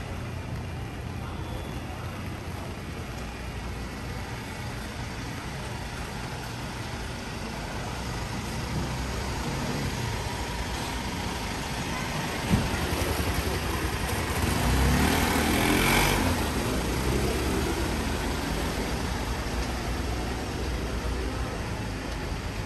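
A vehicle passing on a wet street, its noise swelling and fading, loudest about fifteen to sixteen seconds in, over a steady hiss. There is a single sharp click about twelve seconds in.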